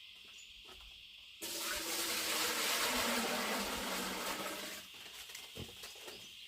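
A rush of water for about three seconds, starting suddenly about a second and a half in and fading out, over a steady chirring of insects.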